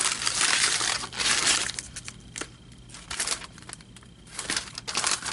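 Packaging being crinkled and crushed in the hands, in irregular bursts with short pauses between.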